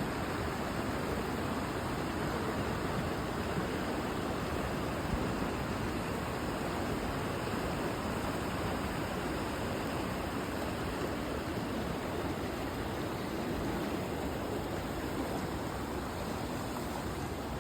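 Steady rushing noise, even and unbroken throughout.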